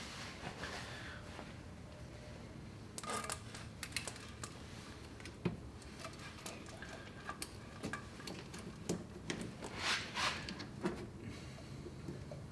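Irregular light clicks, taps and rattles of hands handling small metal and plastic parts in a car's engine bay, over a low steady hum. A busier run of rattling comes about ten seconds in.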